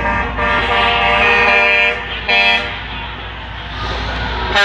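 Truck air horns sounding: a long blast of about two seconds, then a short blast, with another starting near the end, over the steady rumble of heavy diesel trucks running.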